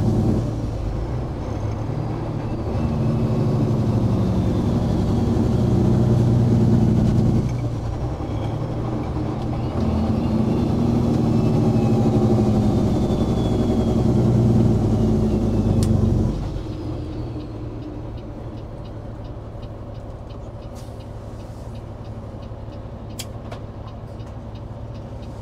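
Peterbilt 389's Caterpillar C15 diesel running under way as the truck slows down an off-ramp. Its note sags and picks up again partway through. About 16 seconds in it drops to a quieter, steady idle as the truck stops, with a few sharp clicks near the end.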